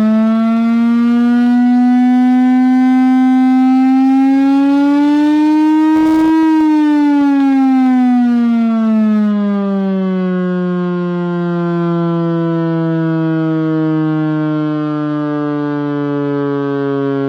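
Chrysler Air Raid Siren, driven by its Hemi V8 engine, sounding loudly: a deep wail that climbs slowly to its highest pitch about six seconds in, then winds steadily down in pitch.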